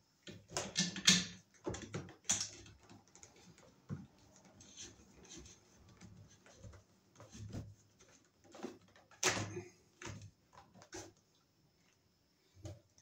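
Irregular clicks, knocks and scraping of hands-on work: white sheathed electrical cable being pushed into a plastic ceiling electrical box and a screwdriver working against the box. The sharpest knocks come about a second in and again about nine seconds in.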